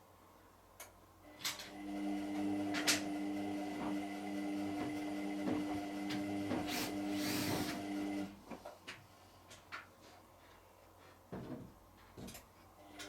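Hotpoint washing machine's drum motor running with a steady hum among clicks and knocks. It stops after about seven seconds, and a few seconds later starts again near the end, the drum's turn, pause, turn wash action.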